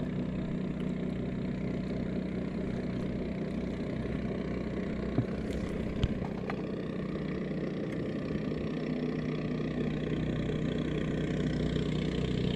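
Small boat motor idling steadily, with two sharp clicks about five and six seconds in.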